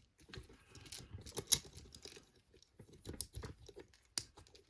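Irregular small metallic clicks and scrapes from a just-opened lever padlock and the pick and tension tools in it being handled, with one sharper click about a second and a half in.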